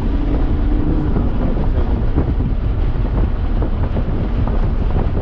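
In-cabin noise of an Audi S5 with a six-speed manual driven hard on track: engine drone and a heavy low rumble of road and wind noise, with wind on the microphone. A steady engine note drops away about a second in.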